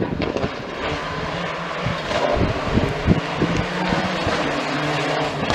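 Rally car engine running hard at speed on the stage, a steady high-revving note over road and wind noise.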